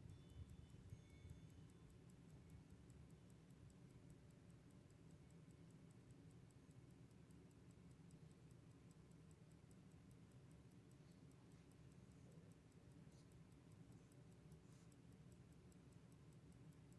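Faint, fast, steady ticking of a Waltham pocket watch, about five ticks a second, used to time the spin-down. Under it, the low sound of the 1907 General Electric pancake fan coasting to a stop fades away over the first couple of seconds.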